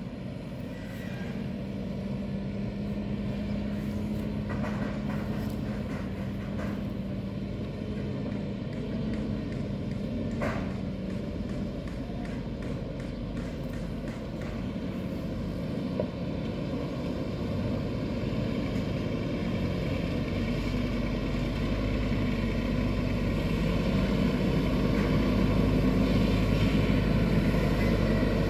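Scania truck's diesel engine pulling a 30-metre grain combination loaded with rice, a steady low drone that grows louder over the last third as the truck comes closer.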